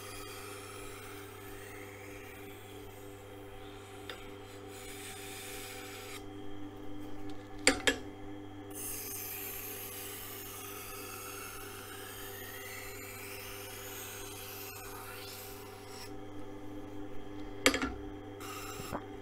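Knife blade drawn back and forth across the turning wheel of a Tormek grinder in its knife jig: a steady motor hum under a rubbing, grinding scrape whose pitch slides up and down with each pass. Two sharp clacks, one about eight seconds in and one near the end.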